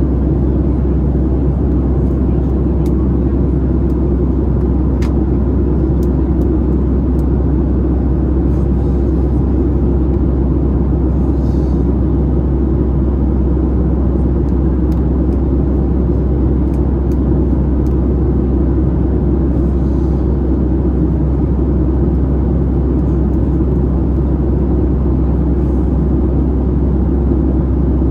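Cabin noise of a Boeing 737-700 in flight: a steady low rumble of its CFM56 engines and the airflow past the fuselage, heard from a window seat by the wing.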